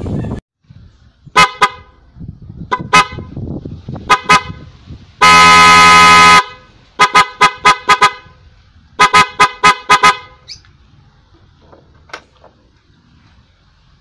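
PIAA Otostyle dual disc horns, wired through a relay, sounding very loud. They give short paired toots, then one long blast of about a second in the middle, then two runs of rapid quick toots.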